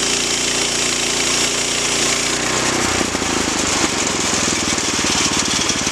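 Gasoline engine of a portable band sawmill running at full throttle while the blade cuts through a pine log, with a steady hiss of sawing; about three seconds in the engine drops to idle, turning into a slower, even pulsing as the cut ends.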